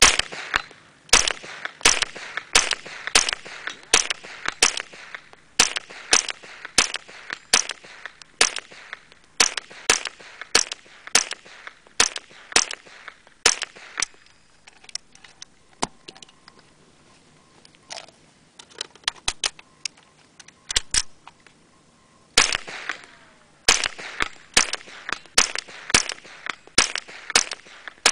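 A .22 LR AR-15-style rifle with a Spike's Tactical ST22 rimfire upper, fired semi-automatically in long strings from a large-capacity magazine. The shots are sharp cracks with a short ringing trail, about one to two a second. Around the middle they thin out to a few scattered, quieter shots, then the rapid firing resumes.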